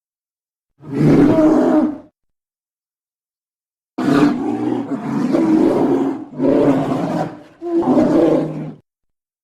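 A large animal's deep, roaring calls: one call about a second in, then a run of three or four calls from about four seconds in, with dead silence between the edited clips.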